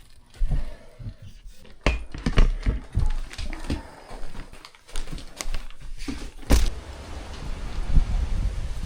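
Irregular knocks, rattles and low thumps of ductwork being pulled apart and handled in an attic, with one loud bang about six and a half seconds in.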